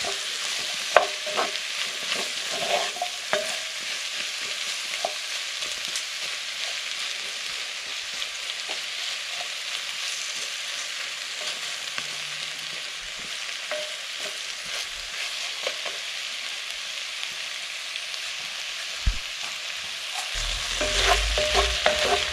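Potato chunks, onion and garlic frying in a cast-iron Dutch oven: a steady sizzle, with a wooden spoon scraping and knocking against the pot as the pieces are stirred. A low rumble joins near the end.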